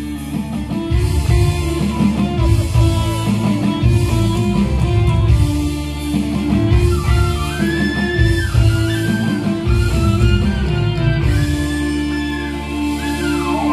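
Live band playing an instrumental passage through a PA sound system: electric guitar, keyboard and kendang hand drums, with a bamboo flute carrying held melody notes.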